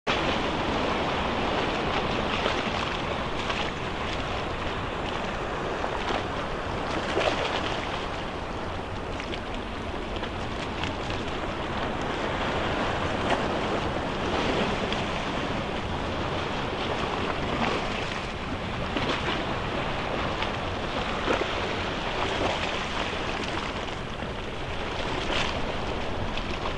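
Steady wash of sea waves with wind rumbling on the microphone, and small splashes breaking through now and then; no distinct engine note.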